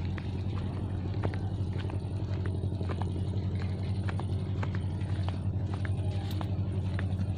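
An engine running steadily close by: a low, even drone with a fast pulse, with scattered light clicks and rattles over it.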